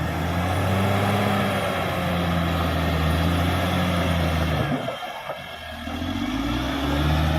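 Cat D6R XL bulldozer's diesel engine running under load. It drops off about five seconds in and revs back up near the end.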